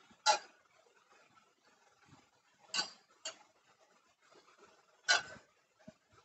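Steel spoon clinking against a stainless steel bowl while scooping up liquid, four sharp clinks at uneven intervals.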